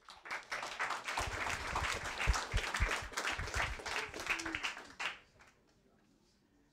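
Audience applauding with dense clapping, dying away about five seconds in.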